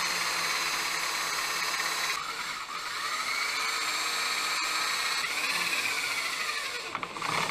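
Electric drill with a cobalt bit boring into metal beside a seized bolt. The motor's pitch sags and recovers as the bit bites, and it stops near the end once the bit has broken through.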